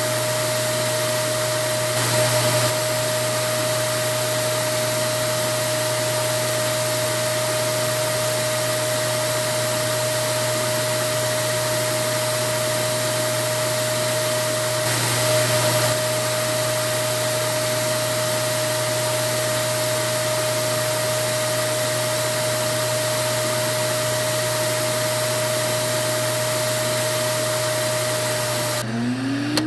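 Vacuum cleaner motor running steadily with a constant whine, swelling briefly twice. Near the end the sound breaks off and a rising whine follows.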